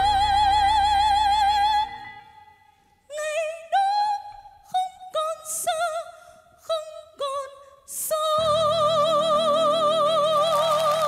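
A woman singing a pop ballad, holding a long belted note with wide vibrato over the accompaniment. The accompaniment stops about two seconds in and she sings short phrases alone, then it comes back in under another long vibrato note near the end.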